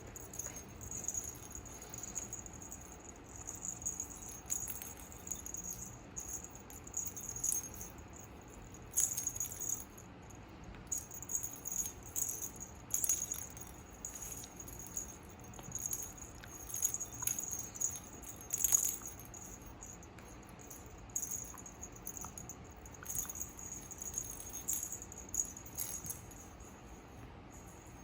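Metallic jingling and rattling in many short, irregular bursts, the loudest about two-thirds of the way in.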